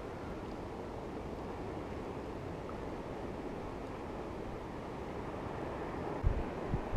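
Steady hiss of wind and water at the shore, with wind buffeting the microphone in low thumps near the end.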